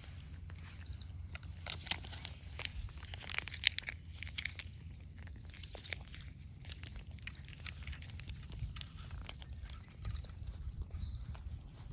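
A cat chewing and crunching cat food: a quick run of small crunchy clicks, busiest a few seconds in, over a steady low rumble.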